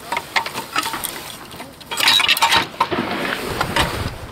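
Steel target stand and its swinging plates clinking and clanking as they are handled and reset, with a louder flurry of metal knocks about two seconds in.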